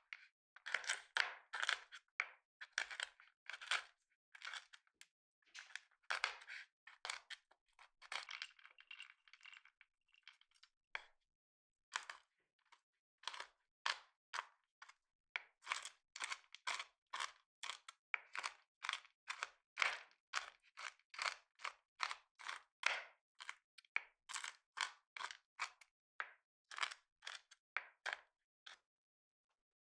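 Chef's knife chopping hazelnuts, then pistachios, on a wooden cutting board: crunching strokes at about three chops a second, with a short pause about ten seconds in.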